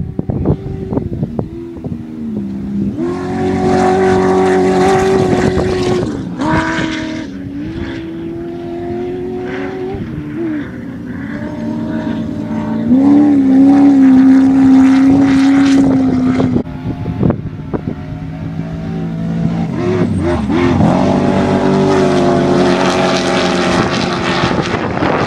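Off-road race vehicle engines running hard at high revs, the pitch holding and then dropping or stepping several times like gear changes and lifts off the throttle. The loudest run, about halfway through, ends with a sudden drop in level.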